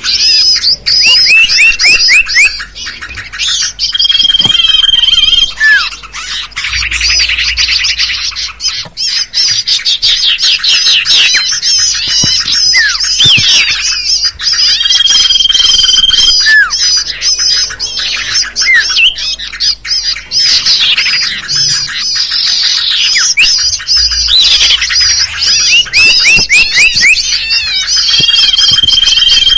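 Bird-lure recording of many small songbirds chirping and calling at once, meant to draw in common ioras (cipoh). A long, steady whistle comes back three times, about every twelve seconds, over the dense chatter, as the track loops.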